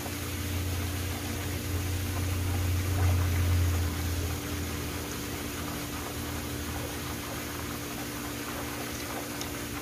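Swimming pool's water jet splashing in a steady hiss over a steady low hum, with a deeper rumble during the first four seconds or so.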